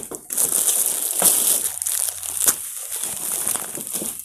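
Clear plastic packets of packed T-shirts crinkling and rustling as a stack of them is handled and shifted, with a few sharper crackles.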